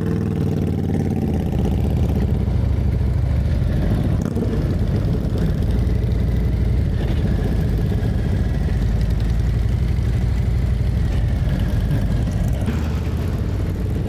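Motorcycle engine running steadily at low revs, growing louder over the first couple of seconds.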